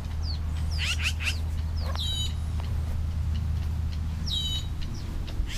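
Small bird chicks peeping: short high calls sliding down in pitch, in three little clusters, over a low steady rumble.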